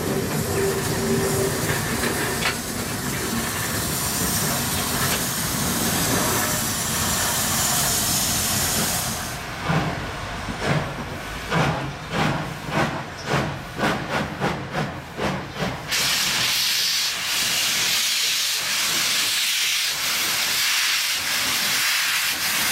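Steam locomotive with steam hissing, then from about ten seconds in a run of exhaust chuffs at roughly two a second. It gives way suddenly to a loud, steady hiss of escaping steam.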